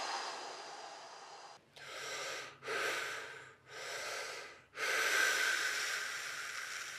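A man's deep, forceful breathing during a freediver's diaphragm-stretching exercise. A long breath fades out, three short breaths follow in quick succession, and a long, loud breath starts about five seconds in.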